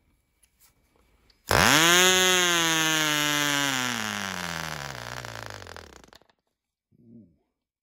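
Tiny Cox .020 Tee Dee two-stroke glow engine catching after a hand flip about a second and a half in, starting with a high buzz that sinks steadily in pitch and loudness over about four and a half seconds until it quits.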